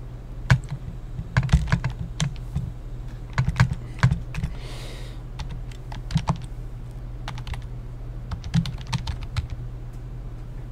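Typing on a computer keyboard: irregular keystroke clicks in short clusters with pauses between them, as a terminal command is entered one letter at a time.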